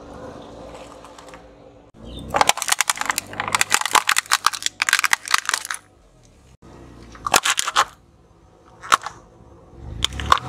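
Car tyre rolling over a pile of dried chickpeas, crunching and popping them in a rapid string of sharp cracks for about three and a half seconds, followed by a few separate cracks.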